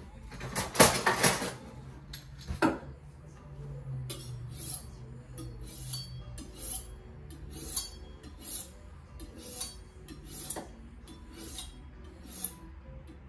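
Kitchen knife being honed on a sharpening rod: short metallic scrapes of the blade along the rod, about two strokes a second. A louder metal clatter comes about a second in.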